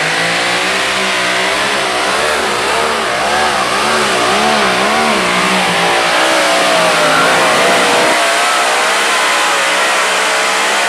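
Modified pulling tractor's engines at full power under load, dragging a weight-transfer sled. The engine pitch surges rapidly up and down through the first half, then holds steadier.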